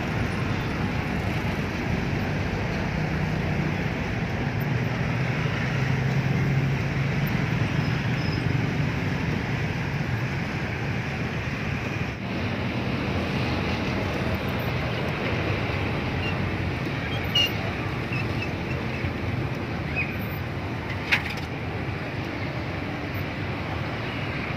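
Steady street traffic noise, a low even hum of passing vehicles, with two short clicks in the second half.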